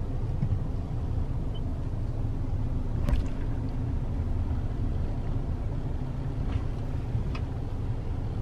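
Steady low rumble of engine and road heard inside a car's cabin while riding, with a few faint clicks.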